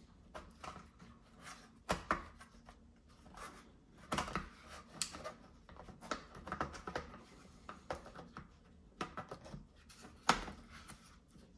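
Hard plastic clicks, knocks and scrapes as a laptop battery pack is handled and pushed into place in the underside of a Sony Vaio laptop on a wooden table, with the sharpest click about ten seconds in.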